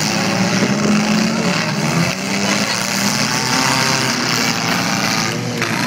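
Several small engines running, their pitch rising and falling as they rev, over a steady loud din.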